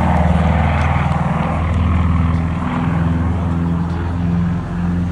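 Propeller aircraft engine running loud and steady, with a rapid low pulsing and slow rises and falls in level.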